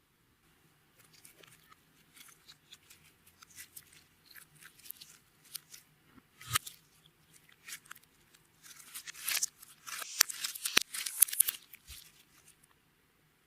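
Clear slime being pressed and pulled by hand, giving a run of irregular crisp sticky crackles and pops that thicken into a dense, louder burst about nine to eleven and a half seconds in.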